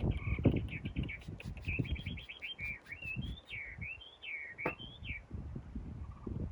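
A small bird singing: a quick run of short chirps, then a series of rising and falling warbled notes that stop about five seconds in. Irregular low knocks and scrapes sound underneath throughout.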